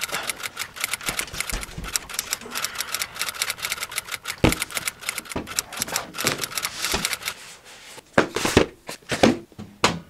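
Typewriter keystroke sound effect: a rapid run of key clacks with a few heavier strokes. The typing stops about seven seconds in, followed by a few louder, separate knocks.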